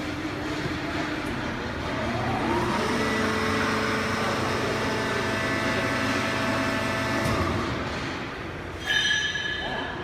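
Horizontal corn-cob baling press and its feed conveyor running with a steady mechanical hum. About two seconds in, a whine rises and then holds steady for about five seconds before cutting off. Near the end there is a brief, sharp high squeal.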